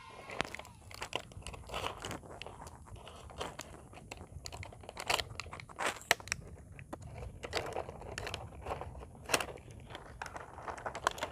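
Clear plastic blister packaging crinkling and crackling in irregular snaps as it is cut and pulled away from its cardboard backing card.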